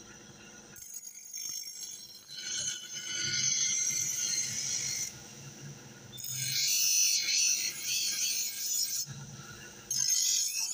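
Steel knife blade ground on a spinning motor-driven grinding wheel to sharpen its dull edge: a harsh scraping hiss in several stretches of a few seconds, with sudden breaks between them, over a faint steady hum.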